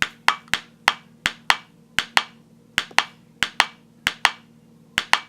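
A quick series of about sixteen sharp clicks, often in close pairs, like a button being pushed over and over, over a faint steady hum.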